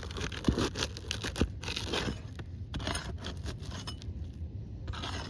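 A metal tool working under asphalt roof shingles: repeated scraping and crackling as it is worked in to reach a nail, with a couple of sharp knocks early on.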